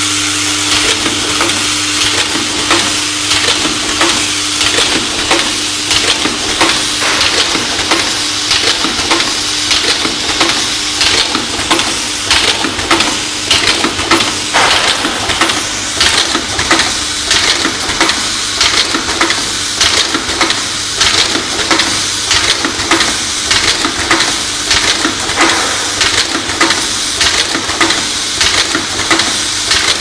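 Automatic HDMI connector assembly machine running: a regular rhythm of sharp mechanical clicks and knocks, roughly three every two seconds, over a steady hum and hiss.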